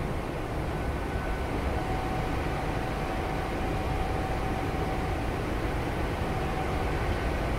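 Nankai 6200 series resistance-controlled electric train heard from inside the passenger cabin, running at steady speed: an even, fairly quiet rumble of wheels on rails with a faint steady whine joining about two seconds in.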